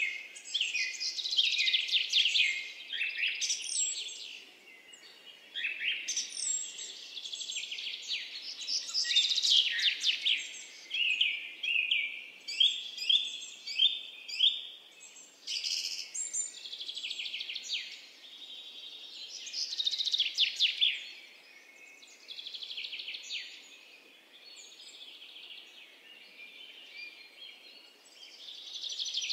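Stoliczka's bushchat singing: a run of quick, twittering song phrases, each a second or two long, with short pauses between them.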